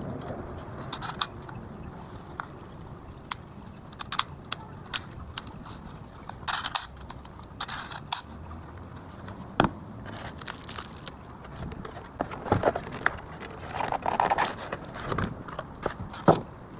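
Handling noise from a plastic toy BB rifle and its magazine: irregular sharp clicks, taps and short scrapes of hard plastic.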